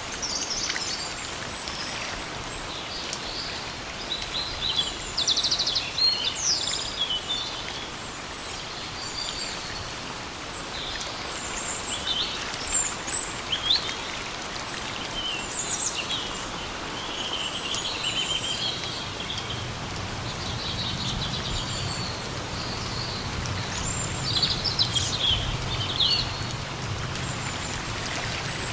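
Steady rain hiss with forest birds calling on and off in short chirps, whistles and quick trills. A faint low drone comes in about two-thirds of the way through.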